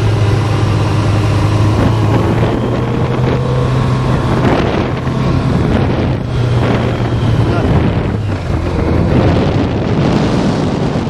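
1985 Honda CB650SC Nighthawk's air-cooled inline-four engine running at a steady pace under way, with wind rushing over the helmet-mounted microphone. About eight seconds in the engine note drops lower.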